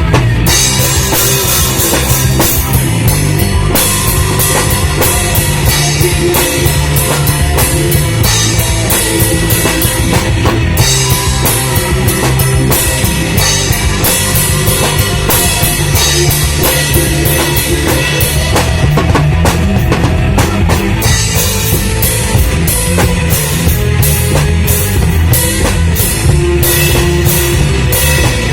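Loud rock music led by a drum kit, with heavy bass drum and a fast, steady beat.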